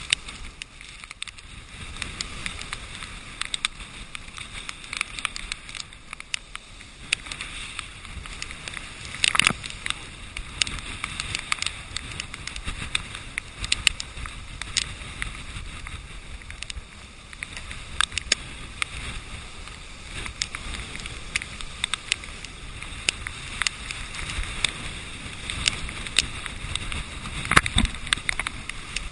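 Storm surf and wind heard through a GoPro's waterproof housing: a steady rush broken by frequent sharp taps of spray and water hitting the case. A louder crack comes about nine seconds in, and a heavier crash with a low thud near the end as a wave hits the seawall.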